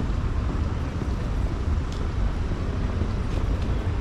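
Steady low rumble of city outdoor ambience with traffic noise.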